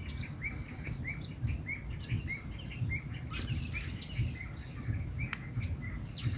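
Small birds chirping in a quick, repeated series of short, upward-hooked chirps, about three a second, with a few higher, sharper calls mixed in, over a low rumble.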